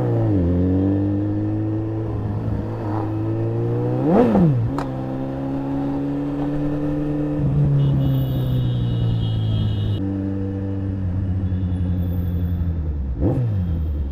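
A motor vehicle engine running at a steady speed, revved sharply three times: at the start, about four seconds in, and near the end, each rev rising and falling quickly.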